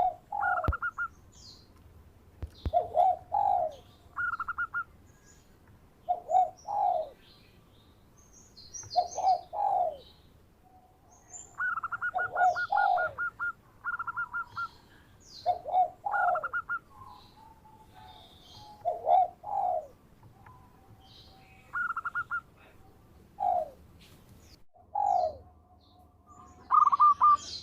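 Zebra dove (perkutut) cooing over and over, each phrase a quick rolling trill followed by two lower coos, about every two to three seconds. Short high chirps of other small birds are heard between the phrases.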